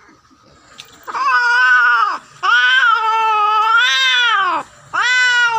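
Female cat in heat yowling while being mated: three long, loud wailing calls, each rising and then falling in pitch, starting about a second in.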